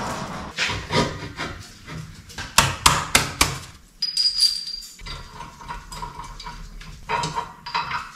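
Metal clanks and clinks as a metal line-up plate is handled and fitted against the end of an engine block, with a tight run of sharp knocks about three seconds in and more near the end.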